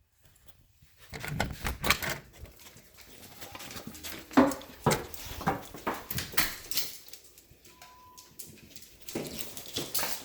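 A dog making short, irregular sounds among knocks and rustling, with a brief thin tone near the middle.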